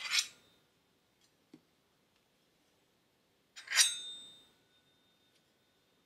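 Two sword-blade sound effects: a metallic swish that ends in a ringing tone, once at the start and again, louder, a little under four seconds in, that ring lasting about two seconds. A soft low knock comes between them.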